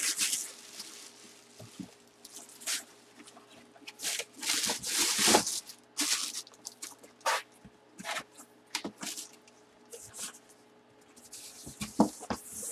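Plastic bag crinkling and rustling as packaging is handled, in irregular bursts with quieter stretches between, loudest about five seconds in and near the end.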